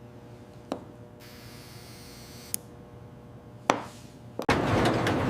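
A low steady hum with a few short, sharp taps or clicks, four in all, spread a second or two apart. Near the end a louder, noisy ambience comes in.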